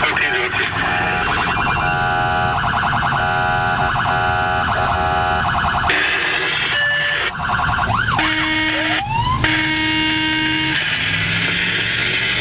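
Emergency vehicle's electronic siren heard from inside the cab, switching between tones: a rapidly pulsing tone through the first half, then short rising and falling sweeps and held tones in the second half. Low engine and road rumble underneath.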